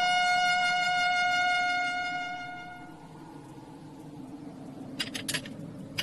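Trumpet holding a long final note that fades away about three seconds in, leaving a low hum with a couple of short soft noises near the end.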